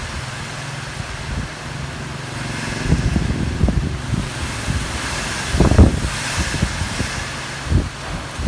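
Typhoon wind gusting and buffeting the microphone in irregular low thumps over a steady rushing hiss. A faint steady low hum runs underneath for the first few seconds.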